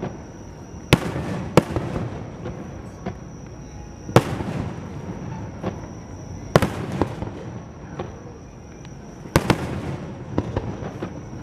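Fireworks display: aerial shells bursting with five main bangs a few seconds apart, each followed by crackling and a rumbling echo, with smaller pops in between.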